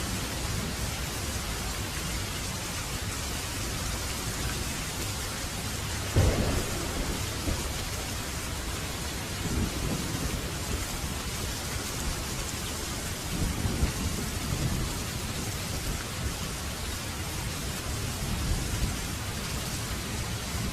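Steady rain falling, an even hiss throughout, with thunder: a sharp loud clap about six seconds in, then several lower rolling rumbles later on.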